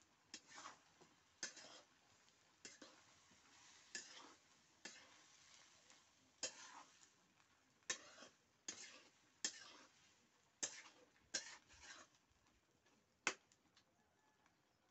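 Spatula scraping and stirring shredded potatoes as they fry in a wok: a series of short, sharp scrapes about one a second, stopping shortly before the end.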